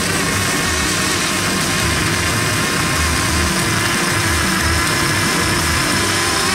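Homemade RC snow blower running while clearing snow: a steady high motor whine over a dense rushing of snow being thrown from the chute.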